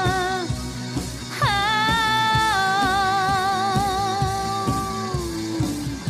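Woman singing long held notes with vibrato over a pop backing track with a steady drum beat. About a second and a half in, her voice slides up into a new held note, which trails down near the end.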